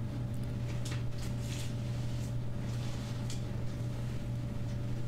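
Steady low background hum, with a few faint, soft handling sounds from fingers pinching and sealing a stuffed ball of dough.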